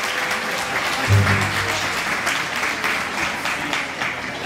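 Audience applauding as the freestyle music ends, with a short low boom about a second in.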